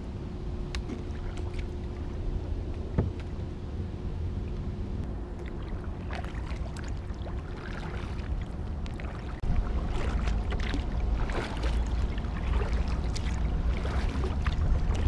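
Kayak paddle strokes dipping and splashing in calm water, with drips and small knocks, growing busier through the second half. Under them a steady low rumble gets louder about nine seconds in.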